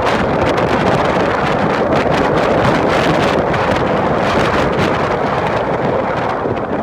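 Strong wind blowing hard across the microphone, a steady loud rush of noise, over ocean waves on a beach.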